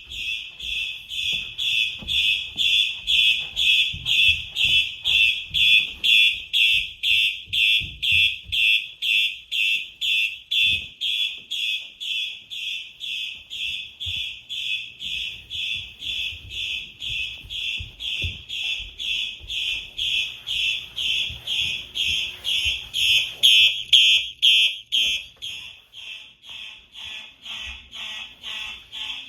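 Fire alarm horn sounding in march time: an even train of short, high, piercing tone pulses, about two a second, somewhat quieter over the last few seconds.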